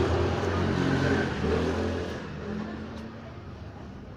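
A motor vehicle's engine running close by, loudest for the first two seconds and then fading away.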